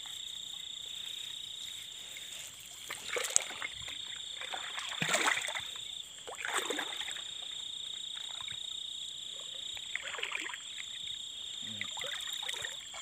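Water splashing in about five bursts as someone wades through shallow water, the loudest about five seconds in, over a steady high-pitched chorus of frogs.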